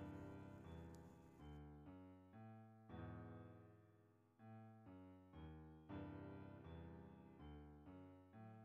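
Soft, slow solo piano music: single notes and chords struck about once a second, each left to ring and die away.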